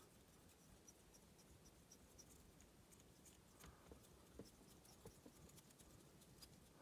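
Near silence, with a few faint ticks and scratches of fly-tying thread being wound along a hook shank.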